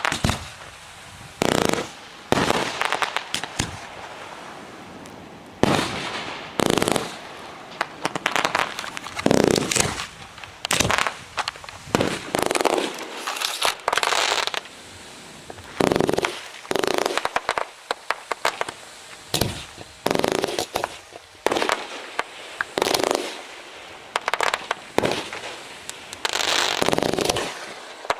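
Fireworks show: a steady run of sharp bangs, about one every second or two, each trailing off briefly.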